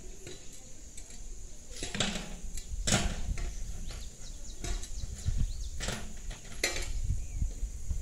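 About five sharp knocks or clinks at irregular intervals over a steady low rumble.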